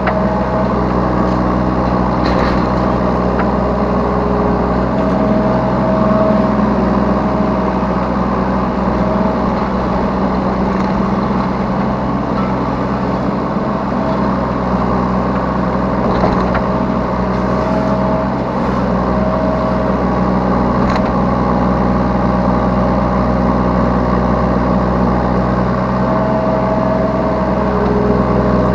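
Yanmar B3 Sigma 3-tonne mini excavator's diesel engine running steadily under load, heard from the operator's seat, with a whine that comes and goes several times as the machine works and a few sharp clicks.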